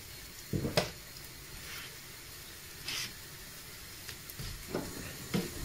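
Faint sizzle of a thin pancake with bacon frying in a pan, with a few soft knocks and scrapes of a spatula against the pan.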